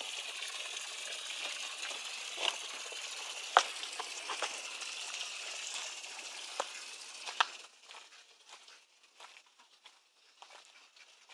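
A steady hiss of spraying water that cuts off sharply about two-thirds of the way in, with scattered crunching footsteps on gravel throughout.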